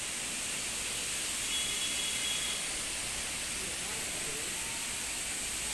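Heavy rain falling hard during a storm: a dense, steady hiss.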